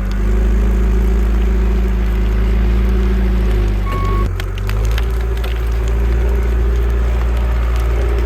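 A vehicle engine running steadily with a low rumble that shifts a little about four seconds in, with one short beep at that point and light crackling over it.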